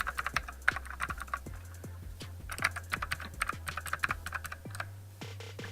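Gasky mechanical keyboard with clicky blue switches being pressed in quick, irregular succession: sharp clacks of the keys, several a second.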